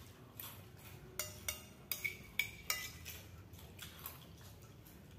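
Spoon clinking and scraping against a bowl while eating: a series of light, sharp clinks, most of them in the first three seconds.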